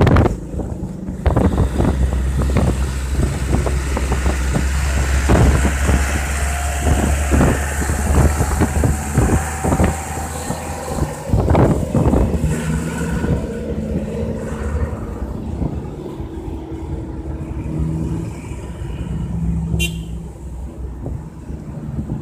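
Ride on a motorcycle through city traffic: wind buffeting the microphone over the motorcycle's engine and the surrounding cars and trucks. A steady low drone runs through the first half.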